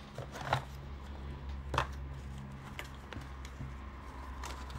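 Small cardboard retail box of a laptop power adapter being handled and turned over: light rustling with a few sharp clicks, the loudest about half a second and nearly two seconds in, over a steady low hum.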